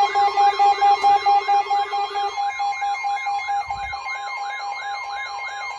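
Layered electronic weather-alert tones ahead of a tornado warning broadcast. A tone warbles up and down about three to four times a second, over a steady high tone and a rapidly pulsing beep. A lower pulsing tone drops out about two seconds in.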